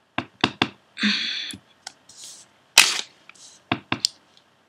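A clear acrylic stamp block tapped on an ink pad and pressed onto cardstock: a series of sharp plastic clicks and taps, with one louder knock a little past halfway and a brief hiss about a second in.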